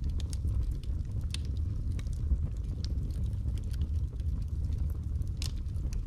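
Logs burning in a fireplace, crackling with scattered sharp pops over a low steady rumble of the flames. The loudest pop comes shortly before the end.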